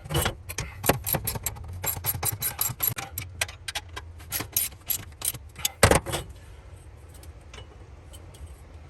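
Ratcheting socket wrench clicking in quick runs of strokes while bolting the new RV stabilizer jack in place, with one loud metal knock about six seconds in; after that the clicks become sparse and faint.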